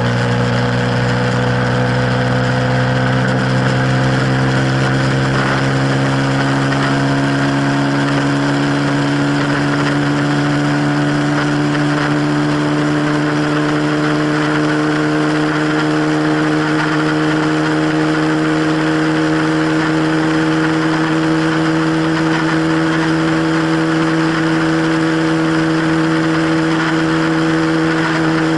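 KTM Duke 125's single-cylinder engine pulling hard at high revs, its pitch creeping slowly upward, over a steady hiss.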